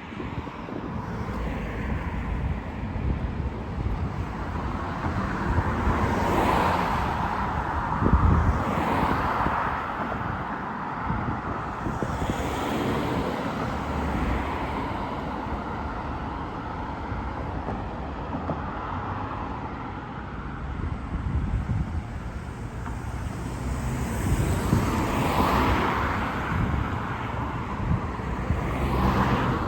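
Road traffic: a steady rumble with several cars passing by one after another, each swelling and fading away. The loudest passes come about six to nine seconds in and again about twenty-five seconds in.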